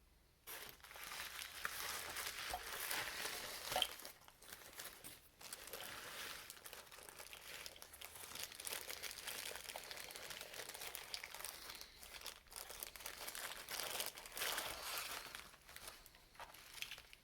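Packaging being handled and opened: irregular crinkling and rustling with some tearing, starting about half a second in, loudest around four seconds, and trailing off near the end.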